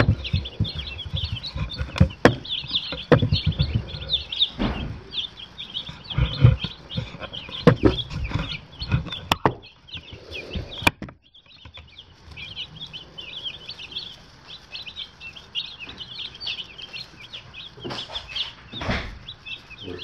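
A brooder full of day-old broiler chicks peeping continuously, a dense chorus of short high chirps. Low thumps and knocks come through the first half, and the sound breaks off briefly a little past the middle.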